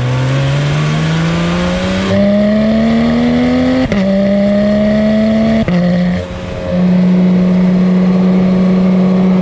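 Porsche 911 GT3 RS 4.0-litre flat-six under acceleration, heard close at its twin exhaust tips. The revs climb, the PDK gearbox makes a quick upshift about four seconds in, and the engine pulls on at steadier revs with a brief lift a little past the middle.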